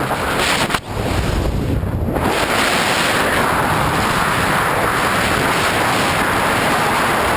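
Wind buffeting the camera microphone in skydiving freefall: a loud, steady rush of wind noise, with a brief dip about a second in.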